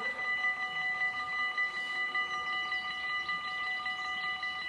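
Warning bells of a Dutch automatic half-barrier level crossing ringing in rapid, even strokes, signalling that a train is approaching while the barriers come down.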